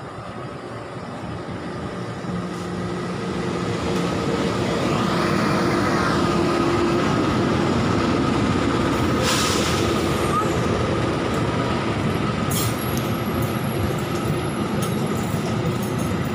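Diesel-hauled passenger train of the Pangrango service passing close by, its locomotive and coaches rumbling past. The sound builds over the first five or six seconds and then holds steady, with sharp clicks from the wheels near the end.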